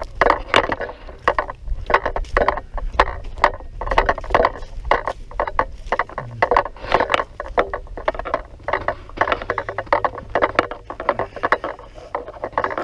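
Footsteps crunching and scuffing on dry leaf litter and dirt, an irregular run of crackly steps, over a steady low rumble on the microphone.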